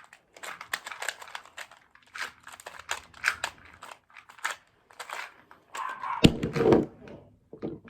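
Plastic Rubik's-type puzzle cube turned fast by hand during a speed solve: a rapid, uneven run of clicks and rattles from the layers turning. A loud thump comes about six seconds in.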